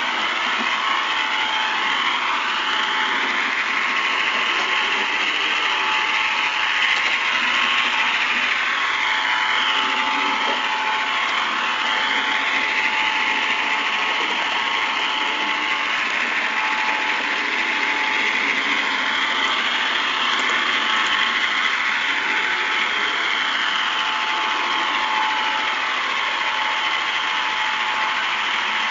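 Model train locomotive's small electric motor and gears running, with its wheels rolling on the rails. The steady mechanical whir has a whine that slowly rises and falls in pitch.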